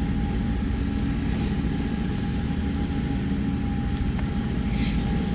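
Boat engine running steadily: a low drone with a faint steady whine above it. A short hiss near the end.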